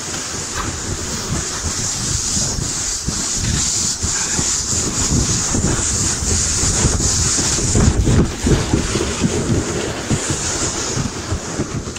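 Kayak hull sliding at speed down a snowy slope: a steady scraping hiss over a low, uneven rumble of bumps, with wind on the microphone. The rumble gets louder and bumpier about eight seconds in.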